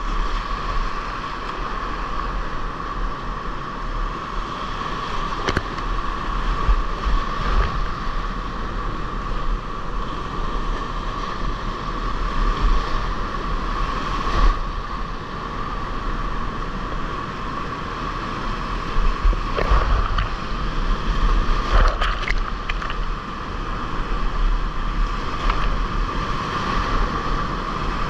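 Whitewater rapids rushing loudly and steadily, heard from a kayak in the middle of the run, with a few sudden sharp splashes.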